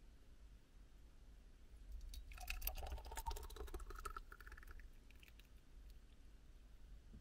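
Hot berry jam pouring from a small rice cooker pot into a glass jar: a couple of seconds of faint small clicks and wet splats as the thick jam drops in, with a faint tone rising in pitch, over a low steady hum.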